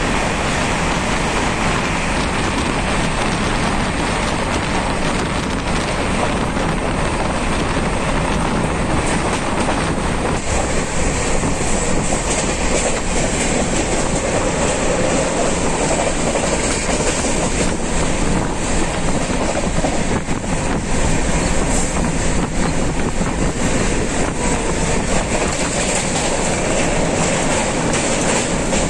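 Indian Railways passenger train running at about 120 km/h, heard from inside the coach: a steady, loud rumble and rush of the wheels on the rails.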